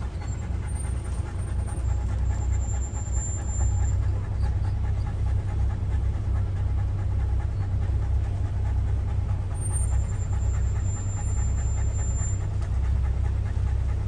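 Open-sided safari truck driving along a rough dirt road: a steady low rumble of the engine and the bumpy ride.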